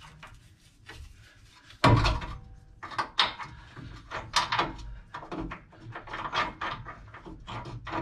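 Metal clunks and clicks from working the rear track bar bolt out of a Jeep Wrangler JK's axle mount by hand: one sharp clunk about two seconds in, then a string of short knocks and clinks.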